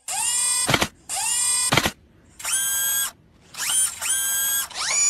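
A series of about seven high-pitched squeaks, each lasting under a second with short gaps between them; several slide up in pitch as they begin.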